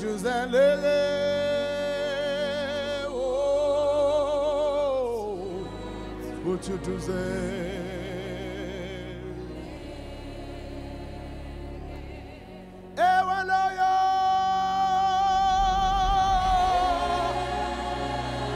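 Gospel worship singing: a voice holding long, wavering notes over a steady instrumental backing, with a new phrase starting sharply about 13 seconds in.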